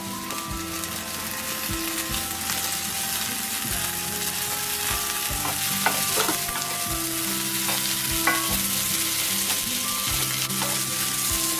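Sweet corn, capsicum, peas and onion sizzling as they fry in butter and oil in an aluminium pan, stirred with a spatula that scrapes and knocks on the pan a few times. Some steady held tones sit underneath the sizzle.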